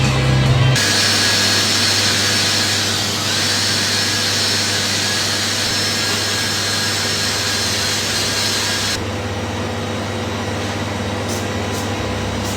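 Metalworking machine running steadily on aluminium, a loud hiss with a thin high whine over a low hum. About nine seconds in the hiss and whine drop away, leaving the hum.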